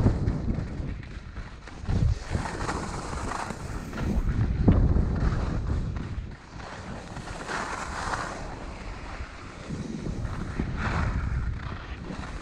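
Skis scraping and hissing over packed, chopped-up snow, swelling with each turn about three times, over a steady low rumble of wind on the microphone.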